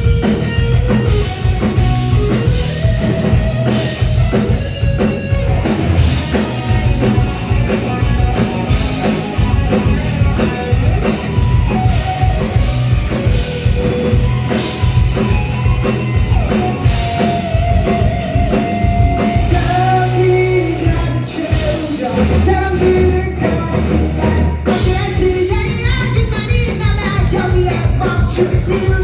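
Live rock band playing a loud, driving song: a singer over a drum kit, electric guitar and bass, with a steady fast beat throughout.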